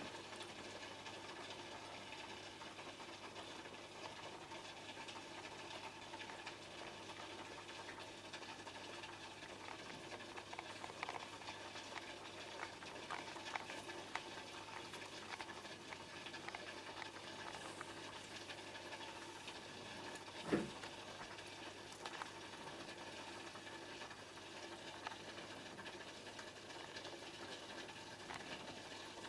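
Aquarium filter pumps and air bubbles running: a steady low hum with a faint watery fizz and scattered small clicks, and one sharper knock about twenty seconds in.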